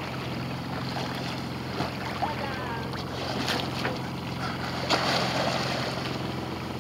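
Sailboat under way at sea: a steady low hum with water washing along the hull and wind on the microphone. A brief louder rush of water comes about five seconds in.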